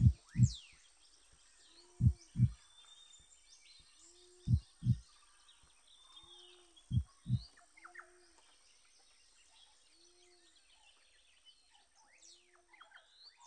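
Heartbeat-like pairs of low thumps, one pair about every two and a half seconds, dying away after four pairs, over faint birdsong chirps.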